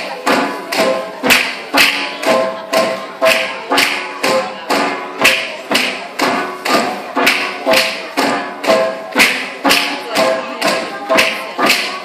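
Bamboo poles of a Cheraw dance being clapped together and knocked on the base poles in a quick, steady clacking rhythm, about two beats a second, over music.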